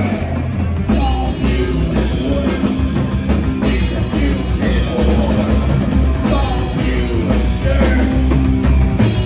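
Psychobilly band playing live: drum kit, slapped upright bass and electric guitar, with the singer's vocal over them.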